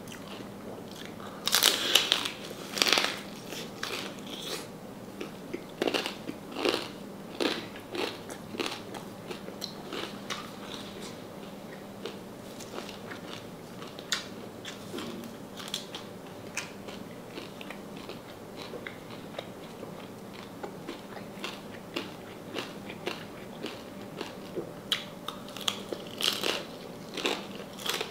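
Close-up crunching and chewing of crispy deep-fried salted pork knuckle. Loud crackly bites come about two seconds in and again near the end, with softer chewing between.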